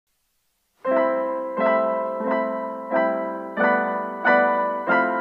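Background piano music: after a brief silence, a chord is struck about every two-thirds of a second, each one fading before the next.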